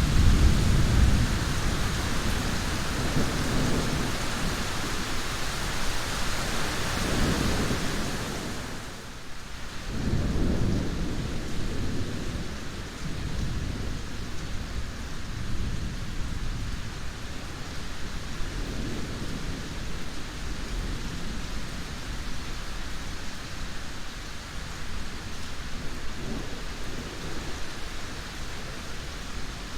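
Steady rain with rolling thunder: the low rumbles swell several times, loudest at the very start and again about ten seconds in. The rain hiss thins out around nine seconds in and stays softer after that.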